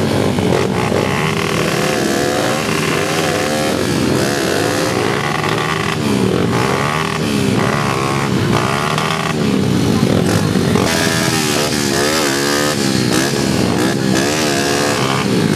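Dirt bike engines revving hard and unevenly, their pitch swinging up and down over and over as the bikes struggle, stuck in deep mud.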